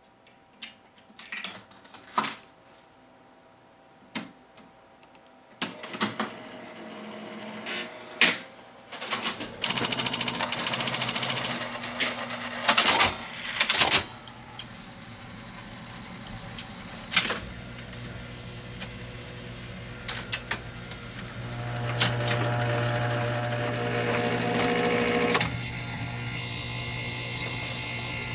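Rowe/AMI MM-5 jukebox starting its play cycle: a run of sharp clicks from the wallbox selection, then the record-changing mechanism's motor running with a low hum while relays and cams clatter and clunk.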